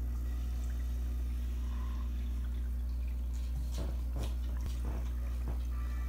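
Steady low electrical hum of running aquarium equipment, with several short drips of water between about three and a half and five and a half seconds in.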